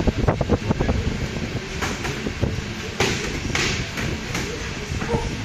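Boxing sparring: a series of sharp slaps and thuds from gloved punches landing, with feet shuffling on the mat, over a steady background hum.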